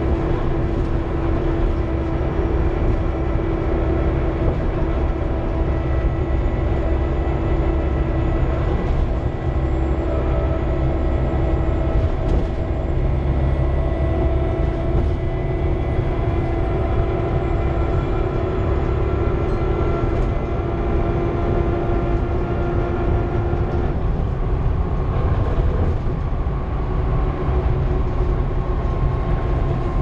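Volvo B7TL double-decker bus on the move, heard from the upper deck: the six-cylinder diesel running steadily under road rumble, with several steady whining tones from the driveline. Near the end, one whine sinks slightly in pitch.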